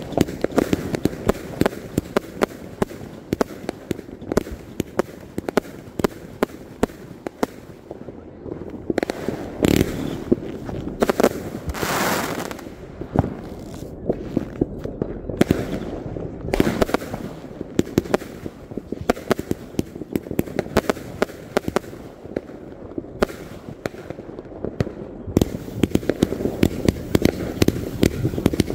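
Consumer fireworks going off continuously: a rapid run of pops, bangs and crackles, with a hiss lasting about a second around twelve seconds in and denser crackling near the end.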